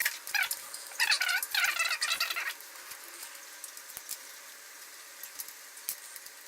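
Plastic laptop screen bezel creaking and squeaking in short bursts for the first two and a half seconds as it is pried away from the lid, its clips releasing; a few faint clicks follow.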